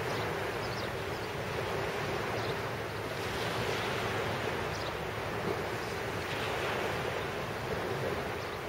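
Small waves breaking and washing up a pebble beach, the surf swelling in and out every few seconds, with wind buffeting the microphone.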